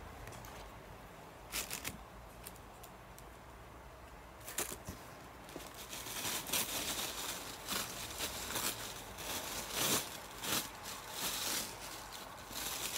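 Packaging rustling and crinkling as items are dug out of a cardboard box: faint at first with a few brief rustles, then steady crinkling from about halfway through.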